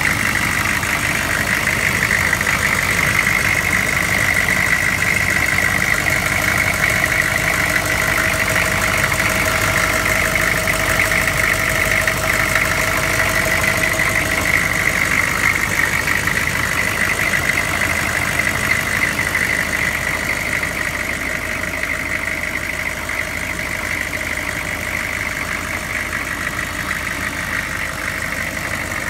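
Chevrolet 2500's 6.5-litre turbo diesel V8 idling steadily, with a steady high whine running over the engine sound; it eases slightly in the last third.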